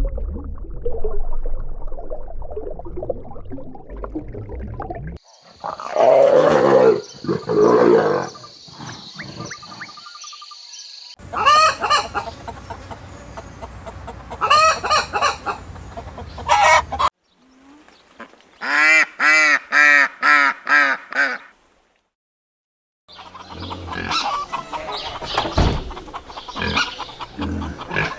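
Chickens clucking and calling, with some rooster-like crowing, in several short separate clips with abrupt cuts between them; one stretch is a fast run of evenly repeated calls.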